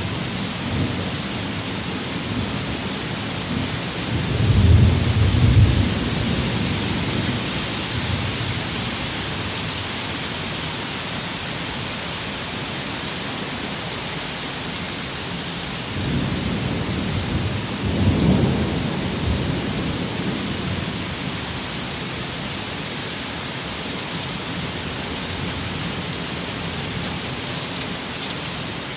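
Steady tropical rain and wind, an even hiss of downpour. Two deep rumbling swells rise and fade, one about four seconds in and another around sixteen to nineteen seconds.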